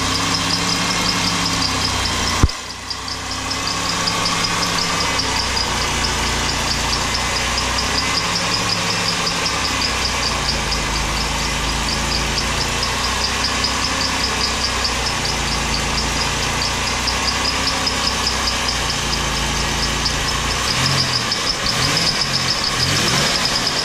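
Ford Taurus engine idling steadily with a fast, even ticking knock over it, a knock typical of worn bottom-end bearings. A single sharp click comes about two and a half seconds in.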